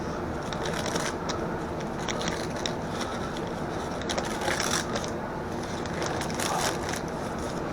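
Faint scraping, rustling and small clicks from handling a freshly microwaved brownie and its dish, over a steady background hiss.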